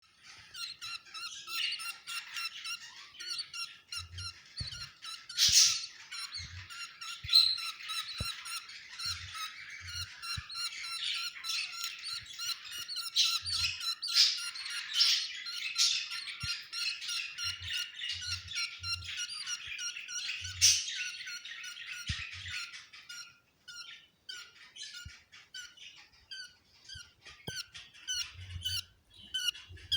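Budgerigars chattering continuously with many overlapping warbles and chirps, broken by a few loud sharp squawks; the chatter thins to sparse short calls in the last quarter.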